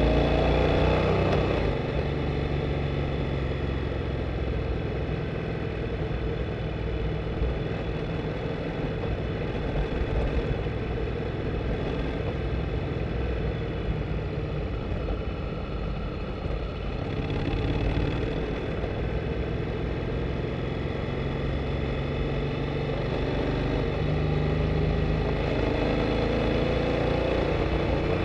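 Honda Integra NC750D's parallel-twin engine running under way, close to the microphone: its note rises at the start and drops about a second and a half in, holds low and fairly steady, then climbs again about two-thirds through and once more near the end.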